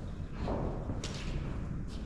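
A few knocks and thuds, about three in two seconds, over a low rumble.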